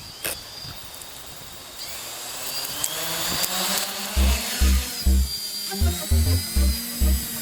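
Electric quadcopter with brushless motors (SunnySky V2216-11 900KV) and 10-inch carbon-fibre props, its high-pitched motor whine rising as the motors spool up and then holding steady. From about four seconds in, background music with a heavy, regular bass beat comes in over it.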